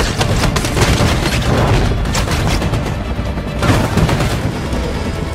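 Film action-scene sound mix: repeated bursts of gunfire and heavy booms and impacts, dense and continuous, over dramatic background music.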